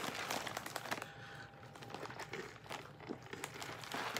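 Crinkling, crackling handling noise made of many small irregular clicks, as of packaging or a cup being handled.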